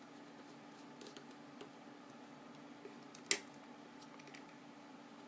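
Faint small clicks of screws, a Torx driver and the knife's parts being handled while a Benchmade Griptilian folding knife is screwed back together, with one sharper click a little over three seconds in. A faint steady hum runs underneath.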